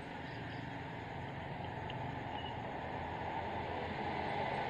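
Steady background noise, with a few faint short high chirps.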